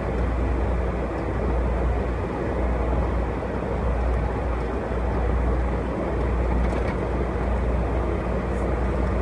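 Car driving along a highway, heard from inside the cabin: a steady low rumble of engine and tyre noise on the road.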